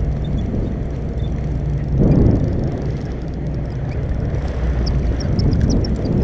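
Steady low drone of a charter fishing boat's engine running, with a louder noisy swell about two seconds in.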